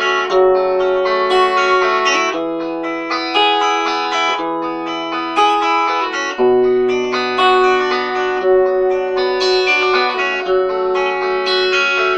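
Instrumental break in a song: guitar music without singing, the chords changing about every four seconds.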